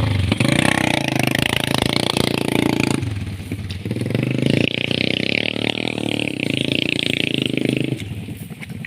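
Motorcycle engine running and revving; it eases off briefly about three seconds in, picks up again, then drops away near the end.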